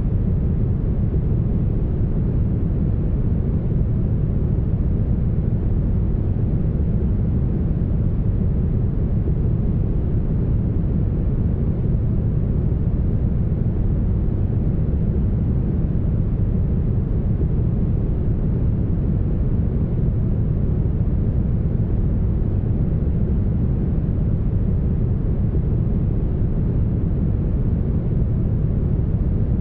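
Steady, smoothed brown noise: an even, deep hiss heaviest in the bass that thins out higher up, with no high treble at all.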